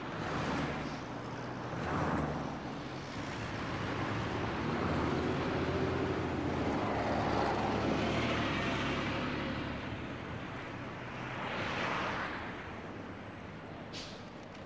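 Street traffic: motor vehicles passing one after another, the sound swelling and fading three times over a low engine hum. A short click near the end.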